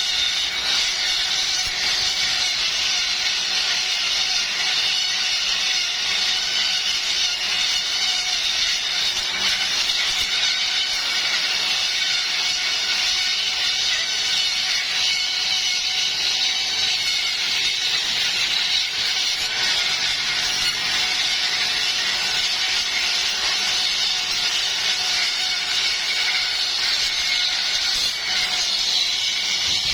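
Bamboo planing machine running steadily, a constant high-pitched whine and rush with no pauses.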